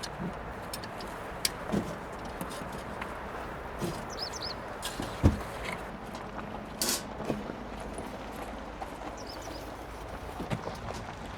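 Steady outdoor background rush with scattered sharp clicks and light knocks of things being handled, a heavier thud about five seconds in, and two brief bird chirps around four and nine seconds in.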